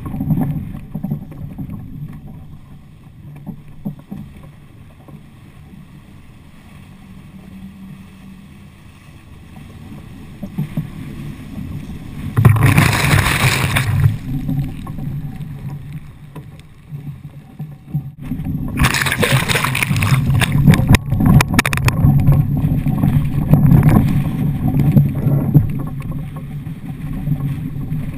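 Laser II sailing dinghy moving through the water: water rushing along the hull and wind buffeting the mounted camera's microphone, quieter for a stretch early on. A loud burst of spray hits the bow and camera about twelve seconds in, and from about nineteen seconds the rush of water and spray stays loud and choppy.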